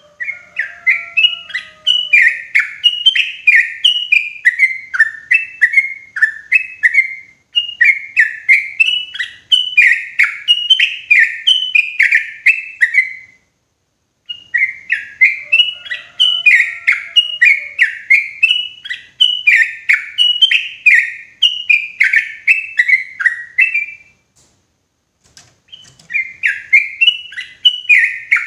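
Yellow-vented bulbul (trucukan) singing loud, rapid runs of bubbly chirping notes. The song comes in phrases several seconds long with short breaks between them, the longest break about two seconds near the end. It is a clear lure song for calling wild bulbuls.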